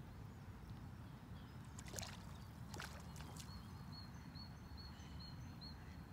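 A hooked trout splashing briefly at the surface, two or three times, over a steady low rumble.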